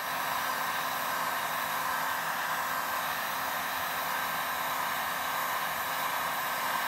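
Warrior handheld electric heat gun running steadily, its fan blowing hot air in a continuous even rush with a faint steady whine, softening Eternabond tape adhesive.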